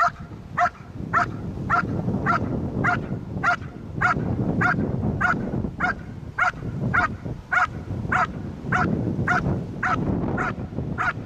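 Dog barking at a steady, even rhythm, a little under two barks a second, over a low rumble: the hold-and-bark at the blind in IPO protection work, where the dog guards the cornered helper by barking rather than biting.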